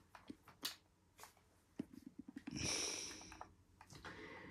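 A person's breath: a short noisy exhale through the nose, about a second long near the middle, with a few faint clicks before it.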